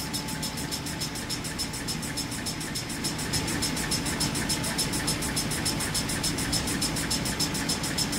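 Maxi jumbo roll tissue rewinder running: a steady mechanical hum under a fast, even pulsing hiss, about six pulses a second, getting a little louder about three seconds in.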